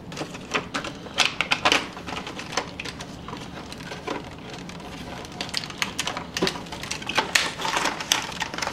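Small cardboard boxes and plastic HO-scale model train cars being handled: irregular clicks, taps and rustles as a car is slid out of its worn box and a box is picked up and opened.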